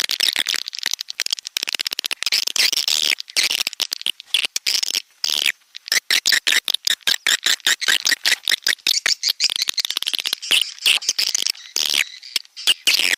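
Recorded edible-nest swiftlet calls: dense, rapid chattering trills and clicking chirps, many pulses a second, with short breaks about five and a half seconds in and near the end. This is a swiftlet lure call played to draw the birds to a nesting house.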